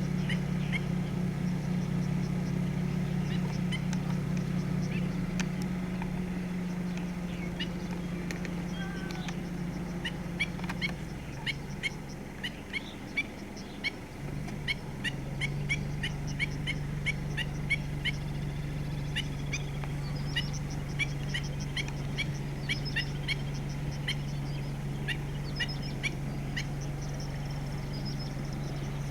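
Black-winged stilt giving sharp alarm calls over and over, several a second: a parent warning its chicks. A steady low hum runs underneath.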